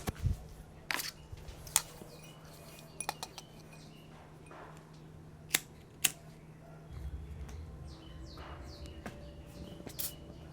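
A scattering of sharp clicks and clinks of hard objects, spaced irregularly a second or more apart, the loudest two about half a second apart near the middle, over a steady low hum.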